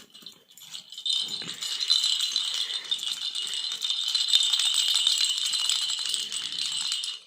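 Baby's rattle toy shaken hard and continuously, a fast steady rattling that starts about a second in and cuts off suddenly near the end.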